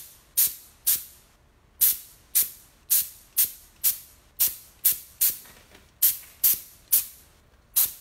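A compressor-fed paint spray gun, regulated to about 25 PSI, firing short hissing spurts of air and paint about two a second, with a brief pause about a second in.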